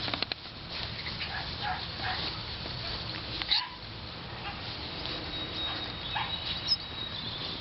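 Two Havanese puppies playing together, giving short, scattered puppy yips and whines.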